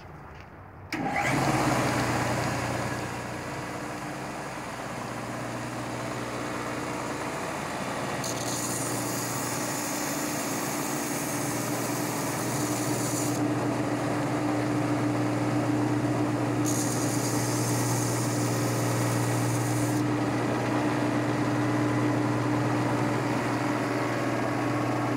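Stationary belt sander switched on about a second in and then running steadily. Twice a soldering iron's worn copper tip is pressed against the moving belt, adding a high grinding hiss for several seconds each time as the old tinned tip is ground down.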